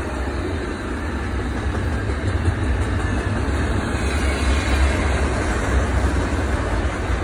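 Double-stack intermodal container cars rolling past on the rails: a steady rumble of wheels on track.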